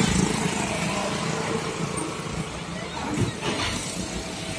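A motorcycle passing close by, its engine sound fading away over the first couple of seconds, leaving steady road traffic noise.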